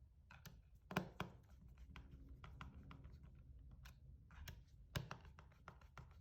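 Faint scattered clicks and taps of a plastic clipper battery case being handled as its cover is fitted to the base and small screws are driven in, with two louder sharp clicks, about a second in and near five seconds.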